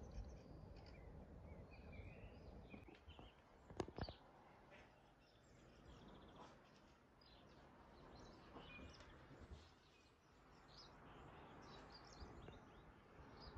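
Faint outdoor ambience: scattered short bird chirps over a low steady background hiss. A brief sharp double knock about four seconds in.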